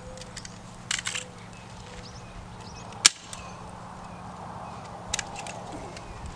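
Sharp single clacks: a quick cluster about a second in, a loud one about three seconds in and another near five seconds, from work fastening chicken wire to a garden fence.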